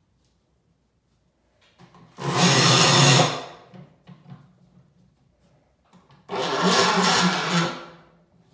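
A handheld power tool's motor runs in two short bursts of about a second each, a few seconds apart.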